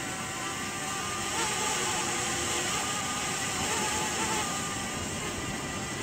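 DJI Mavic Mini drone hovering close by: a steady propeller whine of several pitched tones that waver slightly, over a steady rushing noise.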